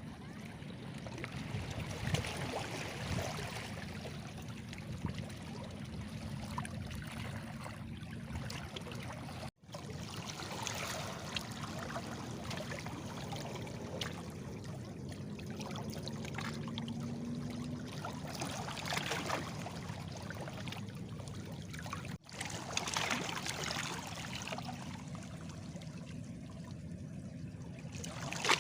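Small sea waves washing and splashing against stones, a continuous wash of water that swells every few seconds as each wave breaks. The sound cuts out for an instant twice.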